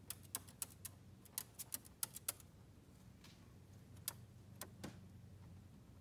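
A cockatiel's claws clicking on a wooden ledge as it walks: a quick, uneven run of sharp light clicks, then a few more after a pause. A faint low hum runs underneath.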